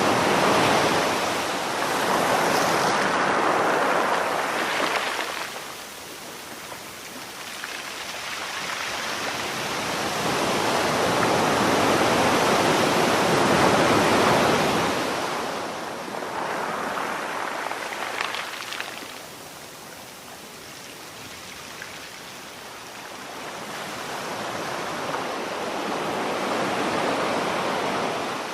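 Sea surf: a continuous rush of waves that swells and ebbs in slow surges, each loud stretch lasting several seconds, with quieter lulls between them.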